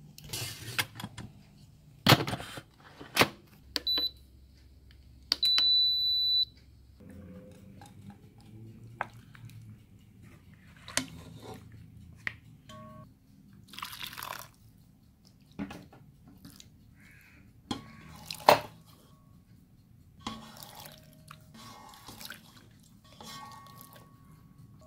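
Kitchen handling sounds: a whole chicken pressed into a pot of broth with a silicone spatula, then broth spooned over the cooked chicken, with drips, splashes and scattered knocks of utensils. A short high electronic beep about four seconds in, then a second one held for about a second.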